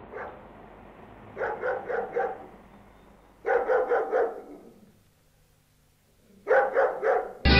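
A dog barking in three short bursts of three or four barks each, with a dead-silent gap before the last burst.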